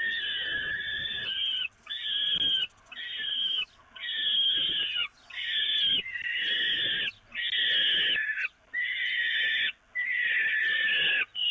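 Peregrine falcon chicks begging while being fed, giving about ten harsh, wheezy screaming calls in quick succession with short breaks between them.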